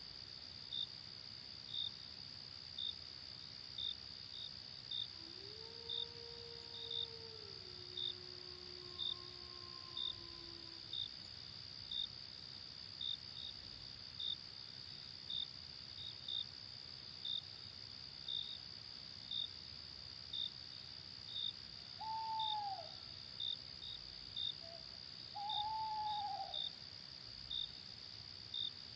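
Crickets trilling steadily, with another insect chirping about once a second, and an owl hooting: one long low hoot about five seconds in that steps down in pitch partway, then two shorter, higher arched calls near the end, about three seconds apart.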